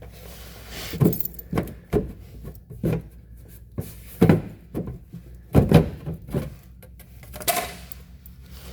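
Irregular metallic clinks and knocks, about one a second, of hand tools and bolts being handled while an underbody cover is unbolted.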